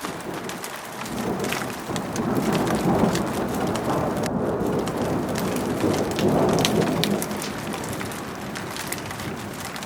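Rain falling in a mountain valley, with close drops ticking sharply over a steady rush; the rush swells louder twice, around three and six and a half seconds in.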